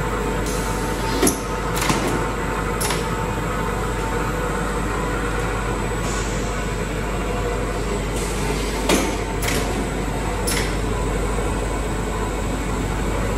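Musk-stick production-line machinery running: conveyor belts and motors give a steady drone with a few held tones. Several sharp clacks cut through, three in the first few seconds and three more later on.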